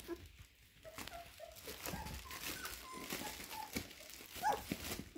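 Young puppies giving several short, high whimpers and squeaks, the loudest near the end, over the crinkling and clicking of bubble wrap under their paws.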